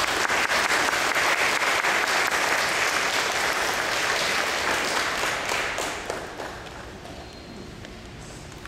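Audience applauding, dense clapping that dies away about six to seven seconds in.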